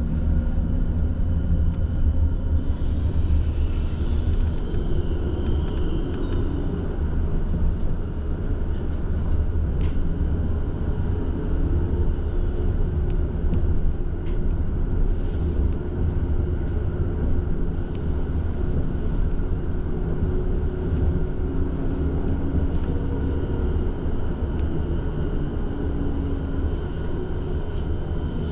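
Tram running along its rails, heard from inside the car: a steady low rumble of wheels and running gear, with a faint high squeal a few seconds in.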